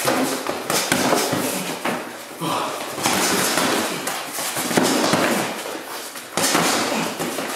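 Boxing gloves striking during a sparring round: several sharp punch impacts, mixed with shoes shuffling and scuffing on a concrete floor and heavy breathing.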